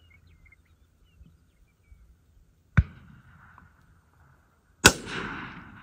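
Two rifle shots about two seconds apart, the second louder and followed by a rolling echo that dies away.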